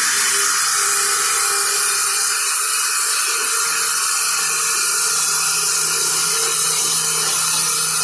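Homemade sawmill running steadily with a continuous high-pitched hissing whine, the sound of its saw blade at work.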